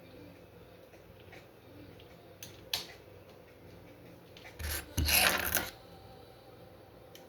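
Handling noise from 3D-printer assembly: a few light clicks, then a scraping rub lasting about a second, the loudest sound, about five seconds in.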